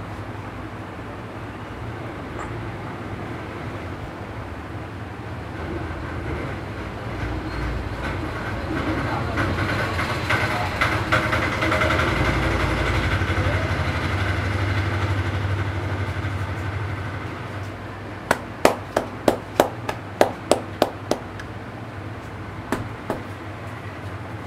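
A vehicle passing, its noise swelling and fading over about ten seconds. Then a quick run of about ten sharp hand slaps, roughly three a second, from head-massage tapping, with two more a little later.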